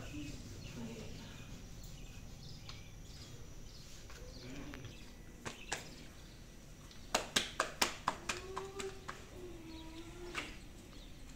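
Kitchen handling sounds while making roti: scattered light knocks, then a quick run of about seven sharp slaps a little past halfway, as the rolled dough is handled before it goes onto the griddle. A faint, drawn-out call is heard near the end.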